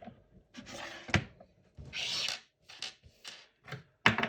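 Hands handling an opened laptop: a string of sharp plastic clicks and knocks, with a brief scrape about two seconds in and the loudest click near the end.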